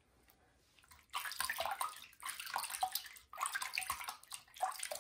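Shallow water in a bathroom sink splashing in about four short bursts as a wet kitten is washed by hand, starting about a second in.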